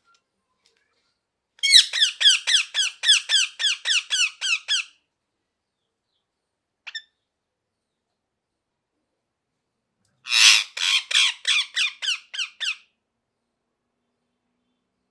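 Rose-ringed parakeet (ringneck parrot) screeching in two fast runs of sharp, downward-sliding calls, about four a second, with a single short call between the runs.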